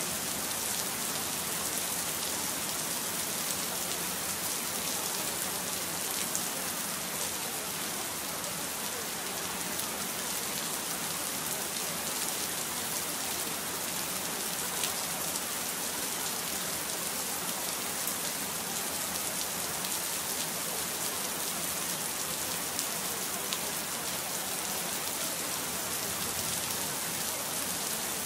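Steady rain: a dense, even hiss of falling rain with faint scattered drop ticks.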